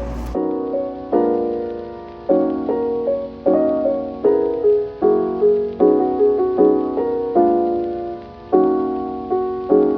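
Background music: a soft, slow piano or electric-piano piece, with gently struck chords that change about once a second and fade between strikes.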